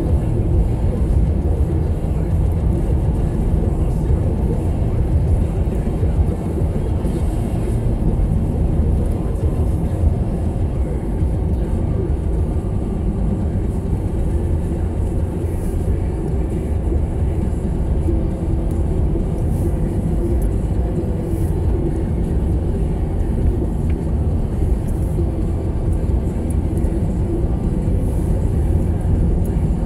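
Steady low rumble of a Toyota Corolla's engine and tyres heard from inside the cabin while driving on a snow-covered road.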